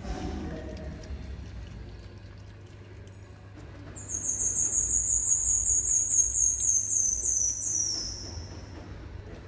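A high-pitched animal call: a fast string of short chirps, about three a second, starting about four seconds in, lasting some four seconds and sliding lower at the end, over a steady low hum.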